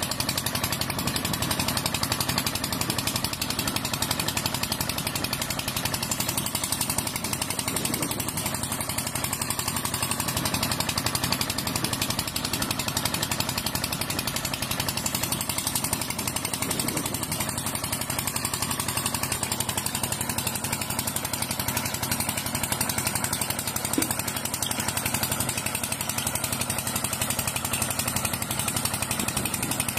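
Small motor of a mini water pump running steadily with a rapid, even buzz.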